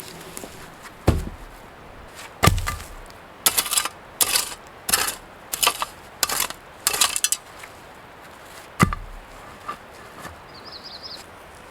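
Woodworking on cedar boards: three hard knocks of wood on wood, one about a second in, one at about two and a half seconds and one near the end. Between them comes a run of about seven short rasping strokes.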